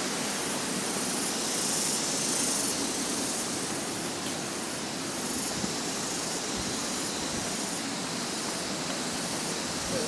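Steady, even rushing of the Tegenungan Waterfall, with no breaks or changes.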